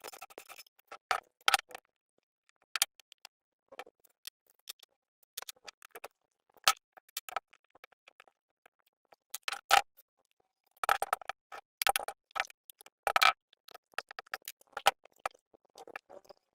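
Irregular clicks and clinks of hand tools and metal engine parts being handled during repair work on a portable generator, with a few louder knocks about ten to thirteen seconds in.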